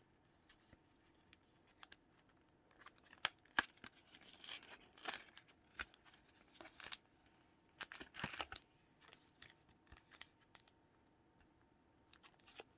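A foil Pokémon Sword and Shield booster pack being opened by hand: soft crinkling and rustling of the wrapper with scattered small ticks, busiest from about three to nine seconds in and once more near the end.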